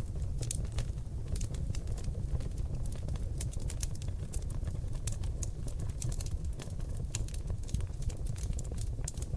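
Seasoned oak logs burning in a fireplace, crackling with many quick, irregular pops over a steady low rumble of the flames.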